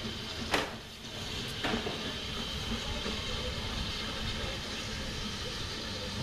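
BR Standard Class 9F steam locomotive 92212 running slowly into a station platform with its train, a steady hiss of steam over the rumble of the train. Two sharp knocks, about half a second and a second and a half in, the first the louder.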